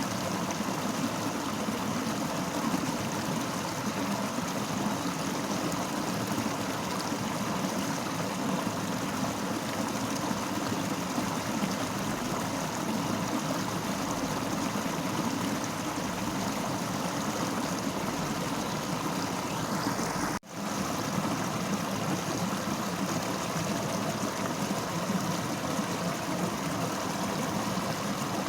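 Fast-flowing river rushing steadily, one continuous wash of water noise, with a brief dropout about two-thirds of the way through.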